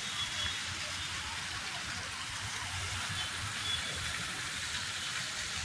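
Steady outdoor street ambience: an even hiss over a low rumble of traffic.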